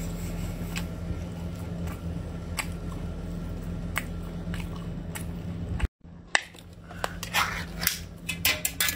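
Close-miked chewing of spicy canned pork intestine, with small wet clicks over a steady low hum. After a cut about six seconds in, a run of louder metallic clicks and scrapes as an opened tin can and its lid are handled.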